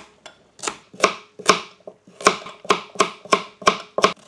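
Chef's knife chopping celery and carrots on a white plastic cutting board: about ten sharp knocks of the blade on the board, two to three a second.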